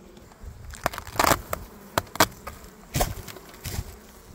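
Honeybees buzzing over an opened hive, broken by several sharp rustles and knocks, the loudest about a second in.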